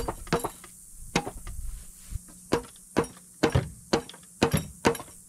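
A dozen or so sharp, irregular knocks of a mallet striking the steel hydraulic lift cylinder of a John Deere 148 loader during disassembly, with a short clinking ring after some blows.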